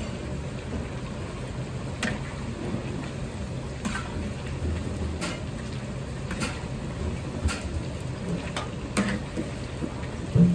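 Battered chicken pieces deep-frying in a large wok of hot oil, a steady dense sizzle, with a metal ladle clinking against the wok every second or so as it stirs. A louder knock comes near the end.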